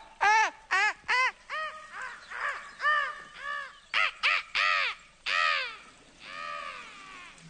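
A man's voice letting out a rapid string of short, high 'ah!' cries through cupped hands, each rising and falling in pitch, bird-like. Four come quickly, then they space out to about two a second. The last two, near the end, are longer and more drawn out.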